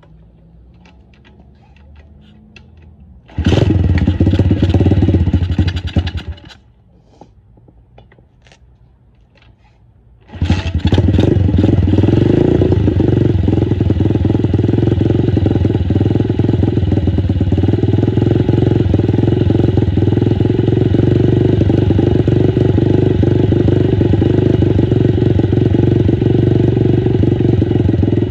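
XPRO DB-X29 dirt bike's single-cylinder engine started from cold: it fires about three seconds in, runs briefly and dies, then catches again about ten seconds in and settles into a steady, evenly pulsing idle as it warms up.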